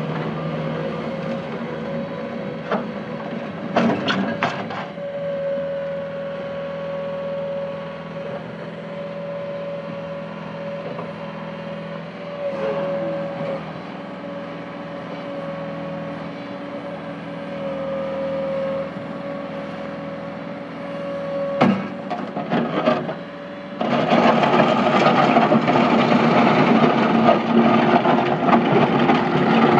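Bobcat T250 skid steer's diesel engine running with a steady whine, with a few clanks about 4 and 22 seconds in. From about 24 seconds in it gets much louder as the engine is brought up to high revs.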